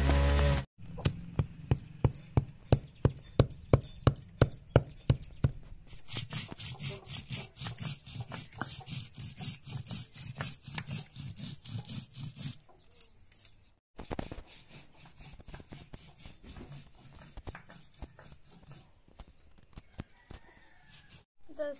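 Round grinding stone knocking on a flat stone slab, about three sharp knocks a second, crushing whole cumin seeds and turmeric. From about six seconds in it turns to a scraping, rubbing sound as the stone is worked back and forth to grind the spices into paste, softer in the last stretch.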